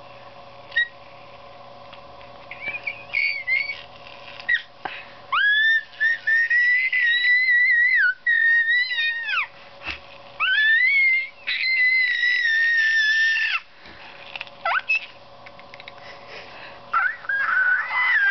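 A baby girl squealing: a run of long, high-pitched held squeals, each sliding up at the start and down at the end, then a few shorter squeaks near the end.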